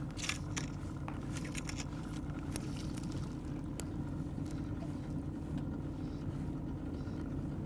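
Steady low drone of a boat motor running, with a few faint clicks and scrapes in the first few seconds.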